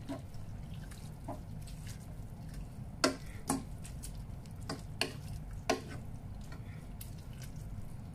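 Wooden spoon stirring spaghetti in a sauce in a nonstick pot, with scraping and several sharp knocks of the spoon against the pot, the loudest about three to six seconds in, over a steady low hum.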